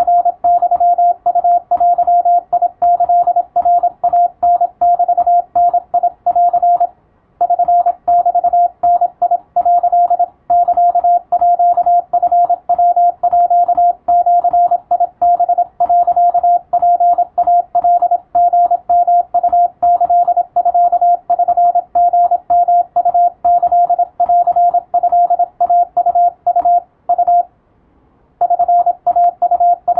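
Japanese (wabun) Morse code practice signal: a single steady beep tone keyed on and off in rapid dots and dashes. There is a short break about seven seconds in and a longer one near the end.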